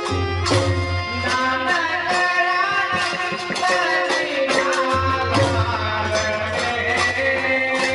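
Background music: a melody over quick percussion, with a low droning bass that drops out for a couple of seconds midway.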